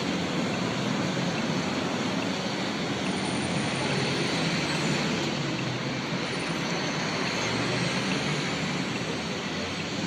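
Articulated low-floor tram passing close by on street track: a steady noise of the tram running, mixed with street traffic noise.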